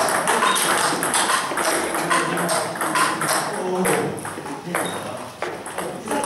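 Table tennis balls clicking in quick, irregular knocks as they are struck by bats and bounce on tables, with voices in the background.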